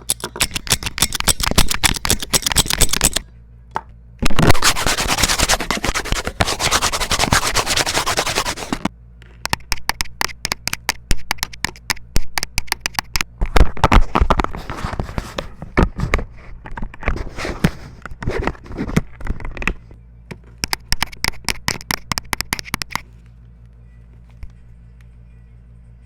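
Rapid crackling and scratching clicks in long bursts, loudest in the second burst. The clicking stops a few seconds before the end, leaving a faint low hum.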